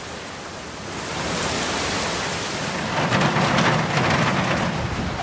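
Heavy rain falling, with a low thunder rumble building about three seconds in.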